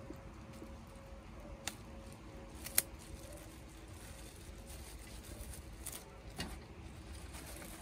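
A white protective bag being stripped off a freshly picked guava by hand: light rustling with a few sharp crackles, the loudest about three seconds in.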